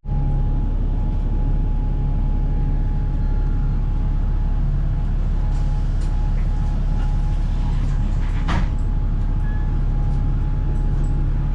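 City bus running, heard from inside the moving bus: a steady low engine drone with a thin steady whine above it, and a short knock about eight and a half seconds in.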